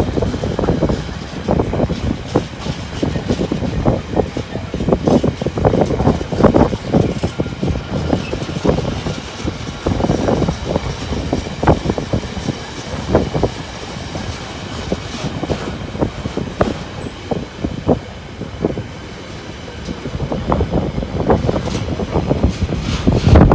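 Container freight train's wagons rolling past, the wheels clattering and knocking irregularly over the track.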